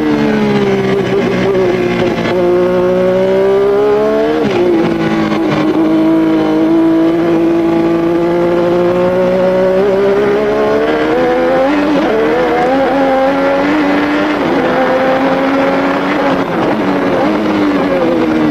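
Formula One car engine at racing revs, its pitch climbing slowly through long stretches. It drops sharply about four seconds in and shifts again around twelve seconds, as at gear changes.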